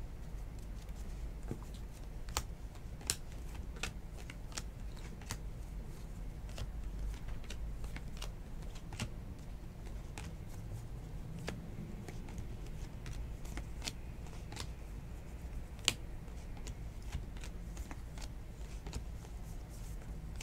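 Stack of baseball trading cards being flipped through and slid off one another by hand, with irregular light clicks and snaps of card edges.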